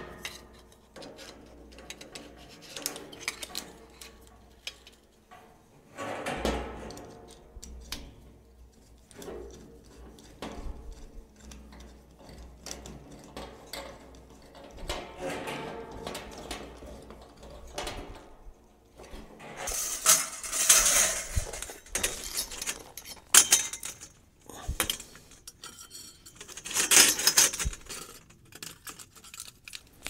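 Stainless corrugated flexible exhaust pipe and a metal silencer being handled and clipped together: scattered metal clinks and rattles, with louder scraping rattles of the corrugated pipe about two-thirds through and again near the end.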